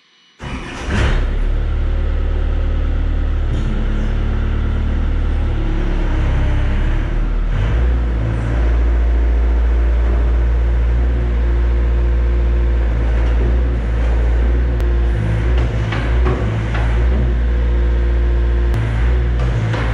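IHI CL35 compact track loader's engine starting about half a second in, then running steadily, its note rising and getting a little louder about eight seconds in.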